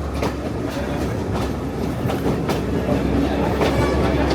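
Passenger train running on the Sri Lankan hill-country line, heard from aboard: a steady low rumble with sharp wheel clicks over the rail joints at irregular intervals.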